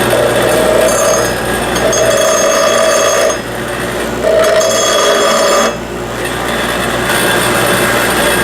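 Power grinder grinding down metal, running steadily with a whine; the whine drops away twice for about a second as the tool is eased off the work.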